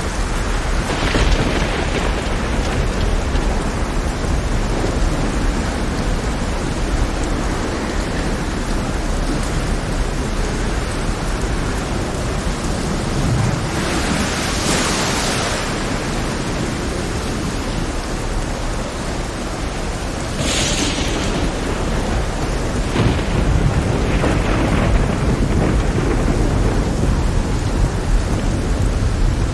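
Heavy rain pouring steadily over a rough sea, with thunder rumbling underneath. Louder rushing swells rise out of it now and then, the biggest about halfway through and another about two-thirds in.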